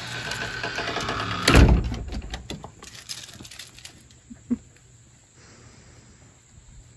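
A dog's claws clattering on wooden deck boards, with one heavy thump about one and a half seconds in. Then the sound fades to a quiet outdoor background with a single light knock.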